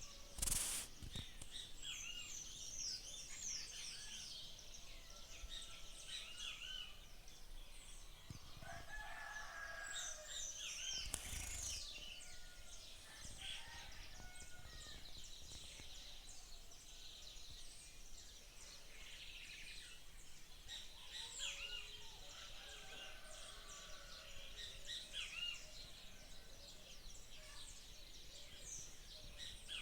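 Many small birds chirping throughout, with a rooster crowing once about nine seconds in. A brief knock follows shortly after the crow.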